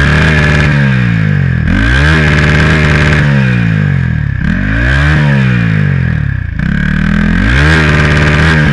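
Turbocharged Honda Titan 160 single-cylinder engine with a downpipe exhaust, revved hard again and again: its pitch climbs and falls about four times, with a steady high whine over it.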